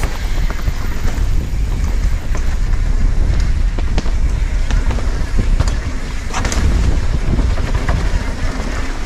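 Wind buffeting an action camera's microphone while riding a Yeti SB6 mountain bike, with a steady low rumble and scattered sharp clicks and knocks from the bike.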